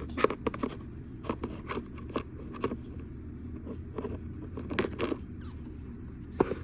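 Toys being handled by hand: a scatter of short, irregular scrapes and clicks, with a slightly louder pair about five seconds in.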